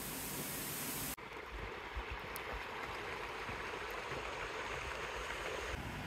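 Steady rush of a waterfall heard from right behind the falling water, hissy and bright; about a second in it cuts to a duller, softer rush of flowing water.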